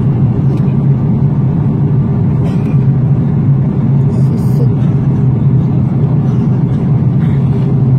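Airliner cabin noise in cruise, heard inside the cabin at a window seat: jet engines and rushing air make a loud, constant low drone with a steady hum, never changing in level.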